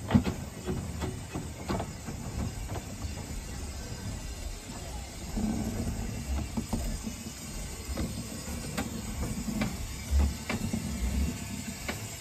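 Small narrow-gauge saddle-tank steam locomotive moving slowly, with steam hissing and its wheels clicking and knocking irregularly over the rail joints. A steady low hum joins about five seconds in.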